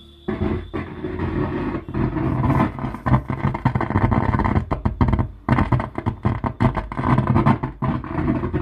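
Loudspeaker driven by a faulty LA4440-based amplifier board, playing audio with a harsh, cracked, ragged distortion ("fati fati" sound). The fault is in the board's two amplifier ICs, whose replacement later gives clean sound.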